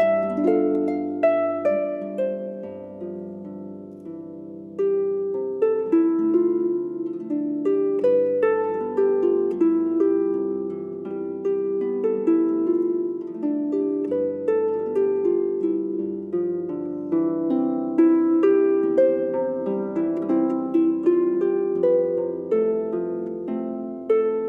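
Instrumental music: a gentle harp melody of plucked, ringing notes over sustained low chords.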